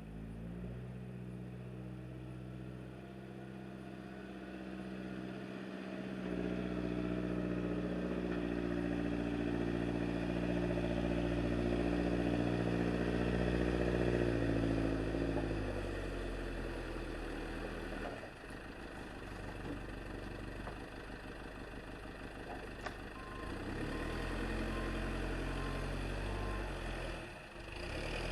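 Wood-Mizer LT35 portable band sawmill's engine running steadily. Its note steps up about six seconds in and falls back around sixteen seconds as the speed and load change.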